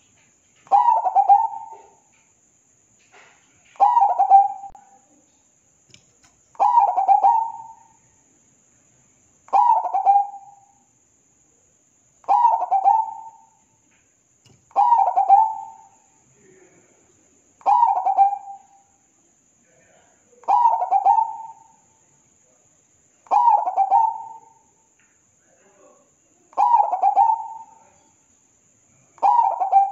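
Zebra dove singing, repeating the same cooing phrase about every three seconds, eleven times; each phrase is a quick run of rolling coos lasting about a second.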